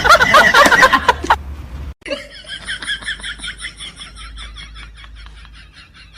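A person laughing loudly. After a cut about two seconds in comes a quieter run of short, rapid repeated sounds that fades away.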